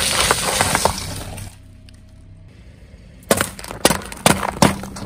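A car tyre crushing paper boxes of caramel popcorn, a dense crackling crunch that dies away about a second and a half in. Then four sharp bangs about half a second apart as the tyre rolls over a row of four aluminium drink cans and crushes them.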